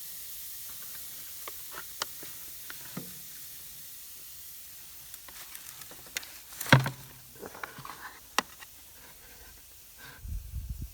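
Chicken and ribs sizzling on a smoker grate over hot charcoal, a steady hiss with scattered crackles and pops. A sharp knock sounds about seven seconds in, and a low rumble near the end.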